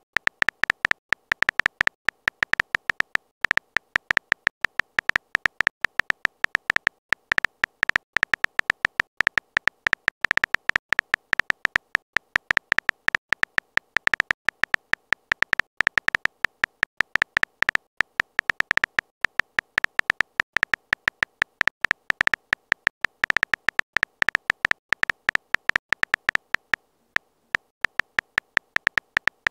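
Phone keyboard typing sound effect: rapid, irregular key clicks, one per letter as a message is typed, each with a slight beep to it. The clicks pause briefly near the end, then carry on.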